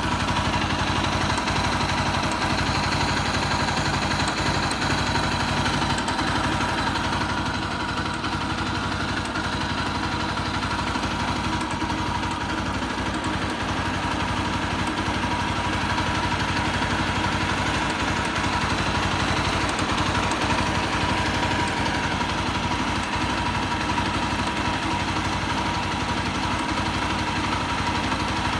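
Bajaj Pulsar NS200's single-cylinder engine idling steadily, with a steady whine above the engine note: a strange noise the owner is checking for.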